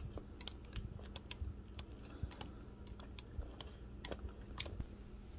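Small wire whisk stirring a thick creamy sauce in a glass bowl, its wires ticking lightly and irregularly against the glass.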